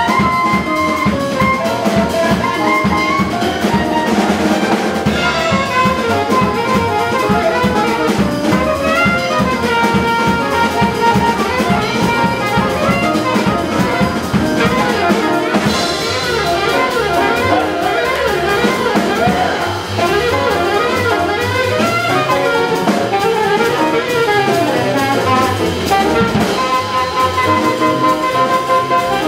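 Live small-group jazz: a saxophone plays a melodic line over grand piano, upright bass and drum kit.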